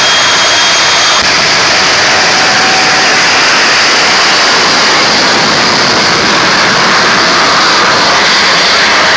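A semi truck's three jet engines run at full thrust with afterburners lit as it launches down a drag strip, making a loud, steady rush of jet noise. A thin high whine over it stops about a second in.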